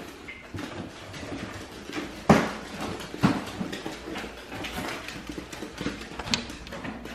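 Footsteps and irregular knocks on a hardwood floor, with the loudest thud about two seconds in.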